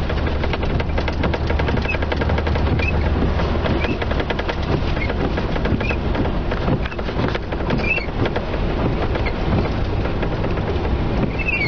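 Heavy rain drumming on a patrol car's roof and windshield in a dense, rapid patter, with faint short squeaks about once a second.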